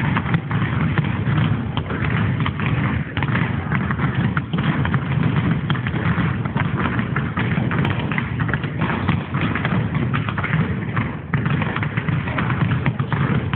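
Basketballs being bounced and dribbled on a floor during a drill: a dense, irregular run of thuds.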